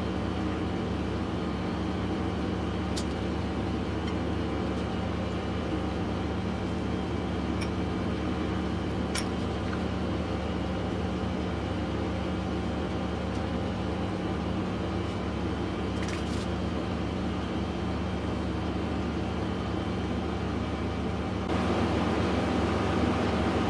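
Steady mechanical hum, like an appliance or air conditioner running, with a few faint light clicks.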